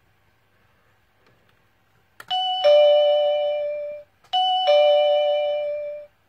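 Mansso K0909WB plug-in wireless doorbell receiver chiming a two-note ding-dong twice in a row, about two seconds in and again about two seconds later. Each chime steps from a higher tone down to a lower one that rings out for about a second.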